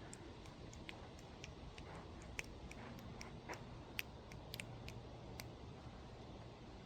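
Faint, irregular sharp clicks and ticks, a few to several a second, over a low steady rumble.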